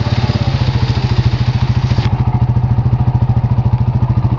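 Small off-road vehicle engine idling close by, with an even, rapid pulsing beat. A hiss behind it drops away about two seconds in.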